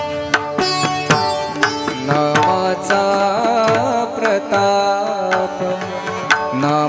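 Marathi Warkari bhajan music: a sustained, wavering melody line over frequent pakhawaj drum strokes and sharp metallic strikes, between sung verses.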